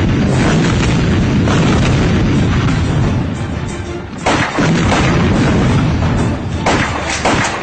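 Film sound effect of a large explosion's boom and rumble under dramatic score music. A fresh loud hit comes just after four seconds, and two more sharp hits come near the end.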